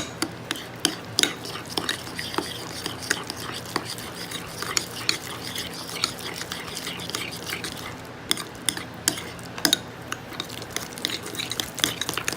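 Glue and borax activator being stirred in a container to make slime: a run of quick, irregular clicks and scrapes.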